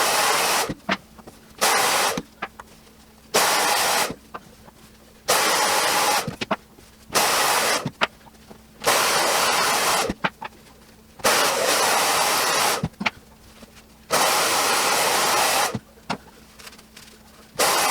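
Air blown in short bursts to dry and clean 3D-printed parts: a steady rushing hiss that starts and stops abruptly about nine times, with faint clicks in the gaps.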